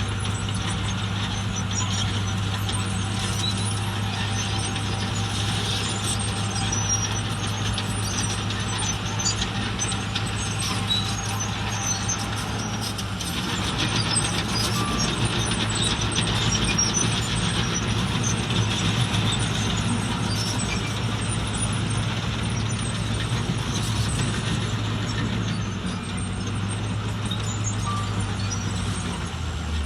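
Heavy diesel construction machinery running steadily, growing louder and rougher about halfway through, as if working under load.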